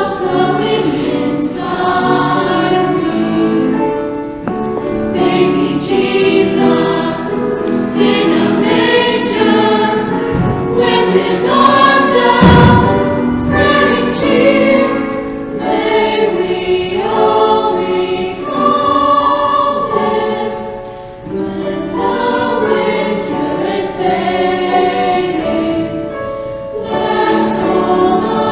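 Church choir singing a Christmas carol in several voice parts.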